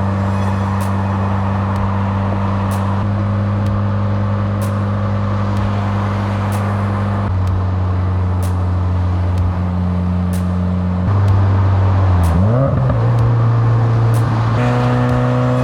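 A 2021 Subaru WRX on the road at speed, heard from inside, with engine and road noise and a short rising sweep about 12 seconds in. Music with a steady pulse and sustained tones that change every few seconds plays over it.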